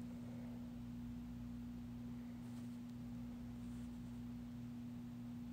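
A steady low hum, one constant tone with fainter steady hum beneath it.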